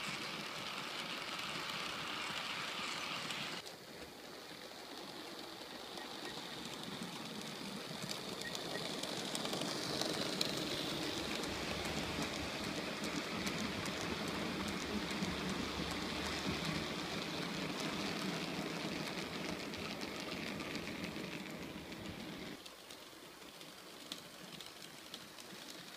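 H0-scale model freight train of open wagons running on the layout track: a steady rushing rattle of small metal wheels, scattered with many fine clicks. The sound drops suddenly about four seconds in, builds up again as the wagons pass close, and falls away sharply near the end.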